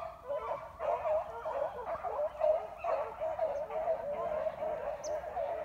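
Several beagles baying at once, their overlapping, wavering cries making a continuous chorus.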